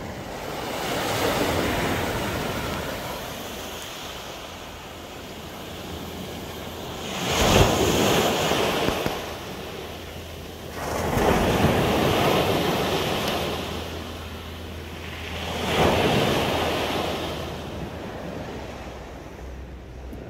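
Small waves breaking on a pebble beach and washing up over the stones, four surges in a row with quieter lulls between.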